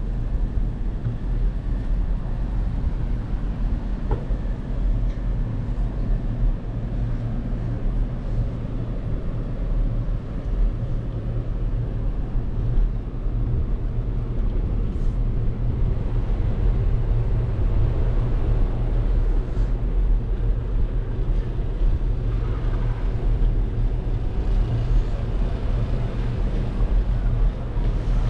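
Steady low rumble of a bicycle ride captured on a handlebar-mounted action camera: tyres rolling on pavement and wind on the microphone.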